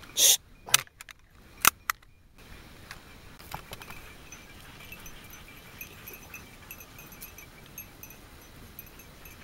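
A few loud sharp cracks in the first two seconds, then the faint, continuous jingling of bells worn by running hunting dogs over steady outdoor noise.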